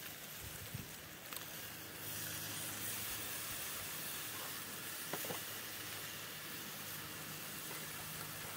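Pork butt steak sizzling on a grill grate over a wood fire after being flipped: a steady hiss that grows louder about two seconds in. A faint low hum runs underneath, with a few light clicks.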